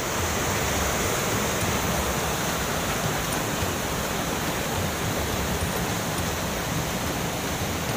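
White-water river rapids rushing over rocks in a steady, unbroken wash of noise.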